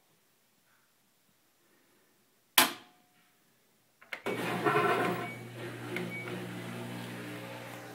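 Washing machine starting its test cycle: a single sharp click about two and a half seconds in, then a little over a second later a steady motor hum with a rushing noise starts, loud at first and then settling.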